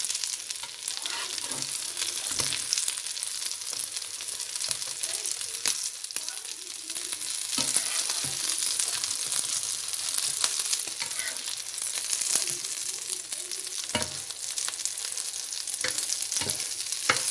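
Potato and pea kebabs shallow-frying in oil in a pan: a steady hissing sizzle with scattered crackles of spitting oil. A few sharp knocks, a utensil against the pan, come through here and there.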